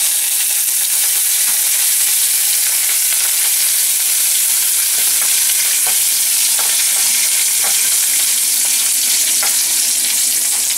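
Curry leaves, fennel seeds and dried red chillies sizzling in hot oil in a steel kadai as they are stirred with a spatula: a steady hiss with a few faint crackles, the tempering for a coconut-milk sodhi.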